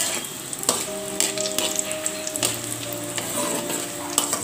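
Hot oil sizzling as crushed garlic, curry leaves and dried red chillies fry in an aluminium kadai. A metal ladle stirring them scrapes and clicks against the pan a few times.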